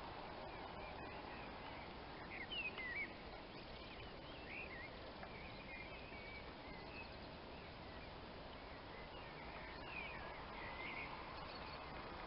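Songbirds singing in short warbled phrases over a faint, steady outdoor hiss.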